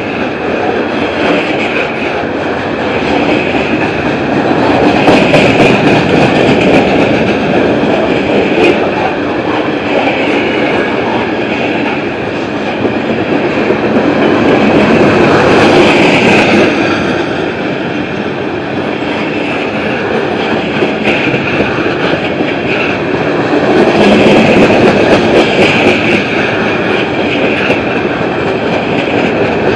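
Freight cars of a passing Norfolk Southern train, tank cars and covered hoppers, rolling by close on steel wheels and rails: a steady rumble and clatter that swells louder three times, with a few sharp clicks.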